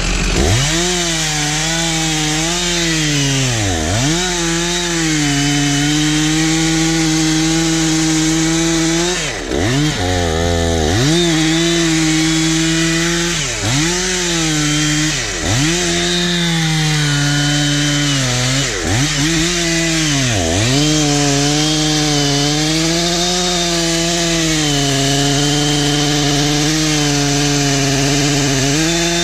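Two-stroke chainsaw cutting into a big white oak for felling, running at high revs under load. Its pitch dips and recovers again and again as the bar is worked in the cut, and it drops briefly to idle about ten seconds in.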